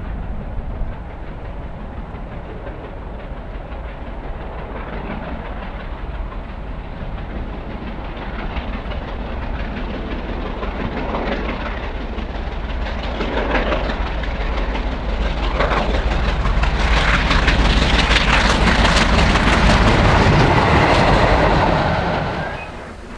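Steam locomotive hauling a train on the mainline, approaching and growing steadily louder, its exhaust and the clatter of wheels on the rails filling the sound as it nears. The sound drops away abruptly near the end.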